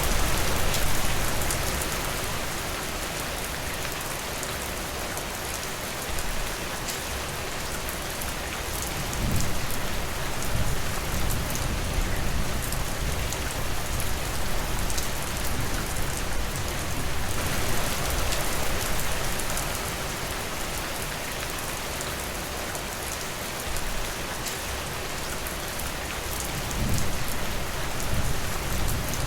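Steady rain falling, with single drops pattering, and a low rumble swelling up about nine seconds in and again near the end.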